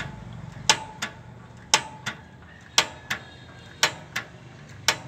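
Homemade spring-loaded power hammer worked by hand, its coil springs flexing as the arm rocks: a string of sharp metallic clanks at uneven intervals, some followed by a short ring.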